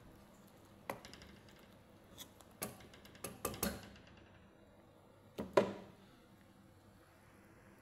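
A cooking utensil stirring curry in a pan, clicking and knocking against the pan: one knock about a second in, a quick run of knocks between about two and a half and four seconds, and the loudest pair of knocks about five and a half seconds in.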